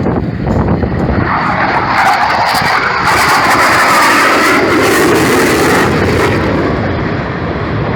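Jet aircraft engine roar that swells about a second in, peaks in the middle with a harsh, high-reaching rush, then eases slightly near the end.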